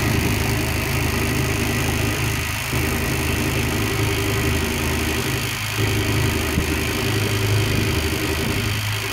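A small boat under way, driven by a converted electric boat motor through an outdrive, giving a steady low hum that dips briefly about every three seconds, with a hiss of wind and water over it.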